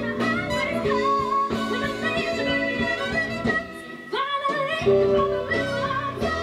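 A female singer belting a pop song with a live band and string section, violins audible under the voice. The music dips briefly about four seconds in and then comes back.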